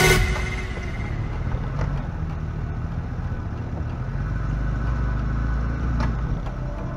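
Off-road vehicle engine running steadily, with a short sharp click about two seconds in and another near the end.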